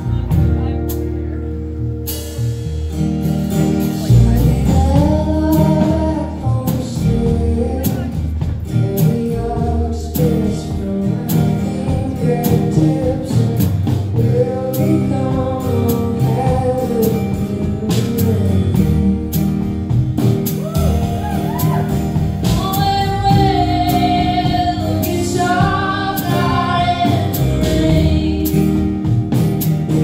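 Live acoustic-guitar-led song with singing, heard through a concert hall's PA. A second, higher vocal line joins past the middle.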